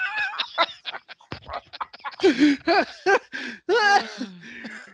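A man laughing hard: a quick run of short breathy gasps, then several loud, pitched bursts of laughter starting about two seconds in.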